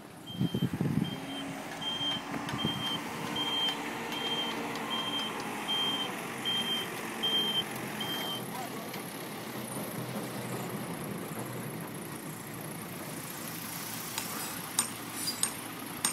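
Reversing alarm of a truck or construction vehicle, beeping at a steady pitch about one and a half times a second over its running engine. The beeps stop about eight seconds in, and a few sharp clicks or knocks come near the end.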